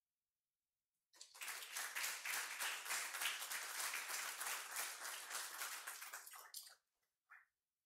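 Audience applauding: the clapping starts about a second in and dies away after about five and a half seconds.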